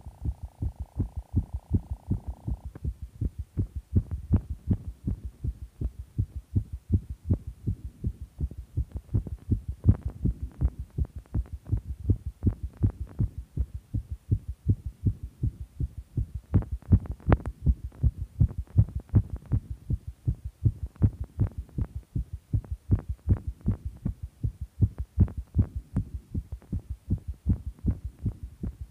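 A fast human heartbeat: a steady, regular run of quick low thumps.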